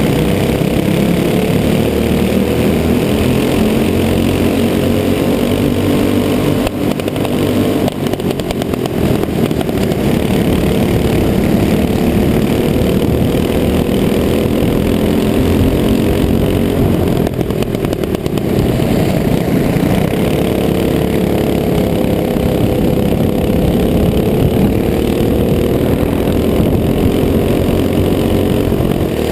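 Onboard sound of a Box Stock clone kart's single-cylinder four-stroke engine racing, its pitch rising and falling with the throttle, with other kart engines running close by in the pack. The note dips briefly twice, about 7 and 17 seconds in.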